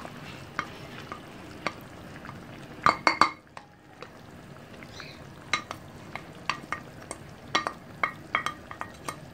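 Meat and onions sizzling in a clay tagine over the heat, a steady hiss broken by scattered sharp clicks of a spoon against the dish, with a cluster of loud ones about three seconds in.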